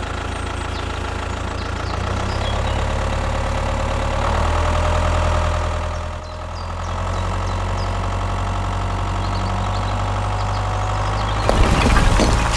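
Tractor engine running steadily with a low drone, dipping briefly about six seconds in. Near the end a louder, rougher noise with knocks comes in over it.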